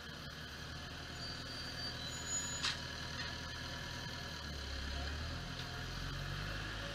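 Deutz-Fahr tractor engine running while its front loader sets a hay bale on the stack and the tractor backs away; the engine gets louder about two-thirds of the way in. One sharp knock sounds about two and a half seconds in.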